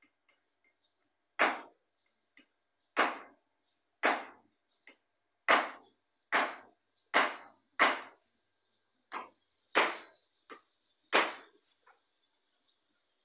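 A series of sharp knocks, about ten loud blows and a few fainter ones, spaced unevenly about a second apart, each dying away quickly in a short ring.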